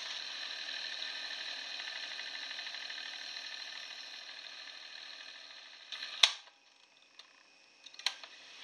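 Sony TC-D5 cassette recorder winding the tape at high speed: a steady whirring hiss with a fine fast ripple, cut off about six seconds in by a loud clunk of a transport key. A second, lighter key click comes near the end as the deck is set up for playback.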